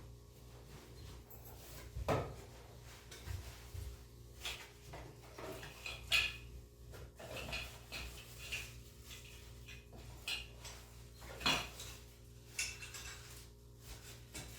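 Scattered light metallic clicks and clinks of a small screwdriver, screws and drive parts being handled while an SSD is fitted into a laptop, with sharper clicks about 2, 6 and 11.5 seconds in.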